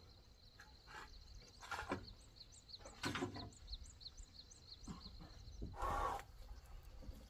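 A small bird repeating a short chirp about twice a second, with a few sharp knocks and a louder clatter about six seconds in.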